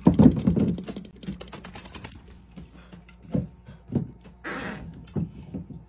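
A Siberian husky gives a short, low grumble, followed by a few soft knocks and a brief breathy huff.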